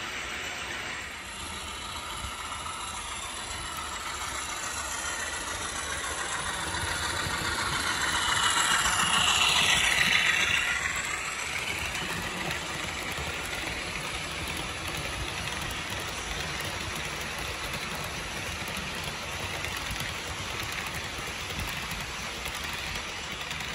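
HO-scale model freight train running on the layout track, a steady rolling rumble and rattle of the cars' wheels. It grows louder as the train passes close to the microphone, peaking a little before halfway, then eases back.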